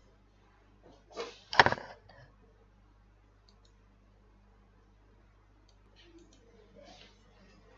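A short, loud clatter or knock about a second and a half in, with a smaller one just before it, then a few faint clicks over room tone.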